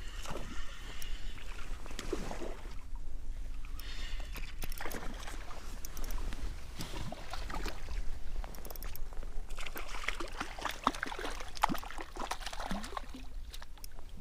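Water sloshing and splashing against a kayak, with irregular small knocks and clicks throughout, while a hooked trout is brought in alongside.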